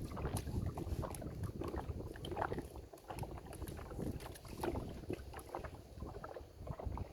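Wind buffeting the microphone in a small boat, with scattered short knocks and splashes from a drift gillnet being hauled in by hand.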